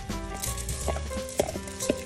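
Uncooked rice grains poured from a plastic container into a rice cooker's inner pot: a rustling hiss with small clicks of grains landing. Swing background music plays throughout.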